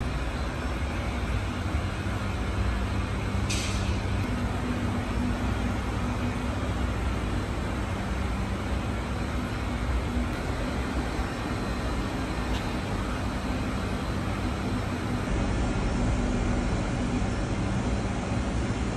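A steady low mechanical drone, with one brief high hiss about three and a half seconds in.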